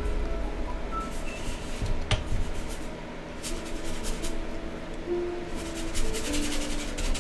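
Paintbrush rubbing and scraping across canvas in short strokes, quickening into a run of fast scrubbing strokes near the end, over soft background music.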